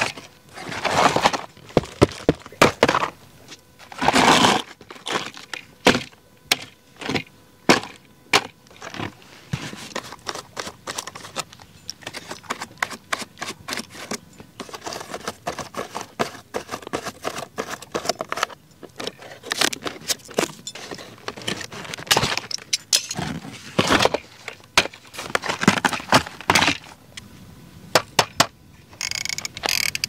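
Handling of cardboard and plastic packaging while unboxing a toy: cardboard flaps and pieces rustling and scraping, with many sharp clicks and knocks of small plastic parts. Near the end a short grating rattle.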